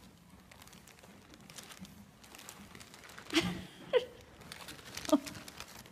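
Plastic shopping bag crinkling faintly as a kitten moves around underneath it, with a few short vocal sounds from about three seconds in.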